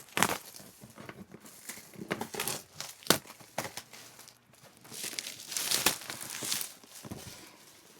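Keyboard box being opened: irregular rustling and crinkling of packaging, with a few sharp clicks and a longer rustle a little past the middle.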